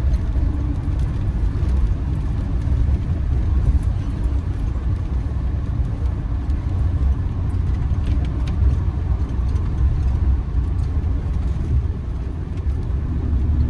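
Engine and road noise heard from inside a camper van's cab while driving: a steady low rumble.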